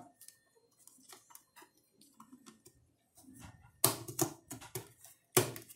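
Small clicks and knocks of a metal MP3 player faceplate being pressed and snapped into a hole in a speaker cabinet's top, with a few louder sharp knocks about four seconds in and one more near the end.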